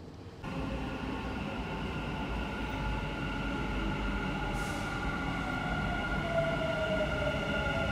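Dubai Metro train approaching an underground platform behind glass platform screen doors: a steady rumble with whining tones, one of which falls slowly in pitch near the end as the train slows.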